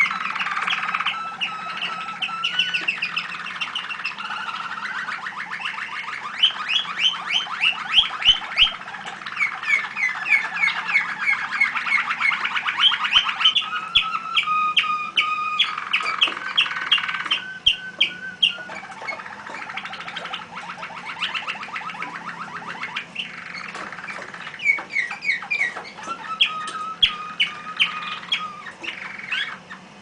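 Caged canaries singing: long runs of rapid trills and repeated notes with only short breaks, more than one bird overlapping.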